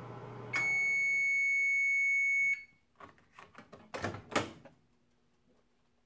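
A 1981 Roper microwave oven's running hum cuts off as its timer reaches zero, and one long, steady, high electronic beep sounds for about two seconds to signal the end of the cooking cycle. Then a run of clicks and a loud sharp clack as the oven door is unlatched and swung open.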